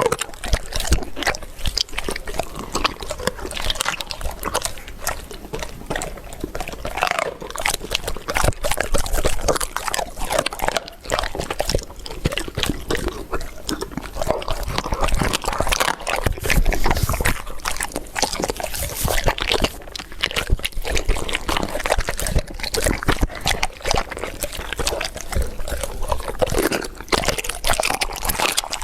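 Dogs eating raw meat and bone: steady wet chewing, smacking and crunching, with many irregular sharp crunches throughout.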